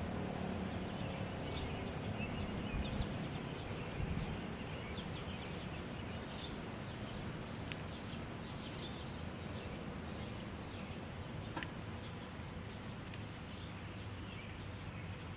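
Small birds chirping now and then over a faint, low outdoor rumble that slowly fades.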